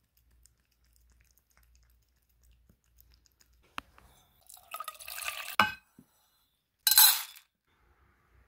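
Stainless steel pet bowls handled and set down: after a near-silent start, a couple of sharp clinks, a short ringing rattle and scrape about five seconds in, and a louder ringing clank about seven seconds in.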